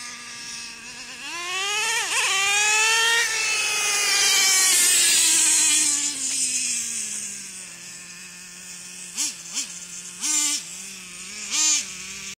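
Traxxas T-Maxx 3.3 nitro two-stroke engine revving as the truck accelerates: the pitch climbs twice, holds high for a couple of seconds, then winds down to a steady idle. Near the end the idling engine is blipped four short times.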